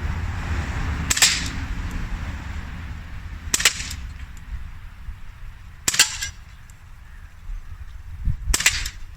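Crosman Vigilante CO2 pellet pistol firing four shots, one sharp crack about every two and a half seconds, over a steady low rumble.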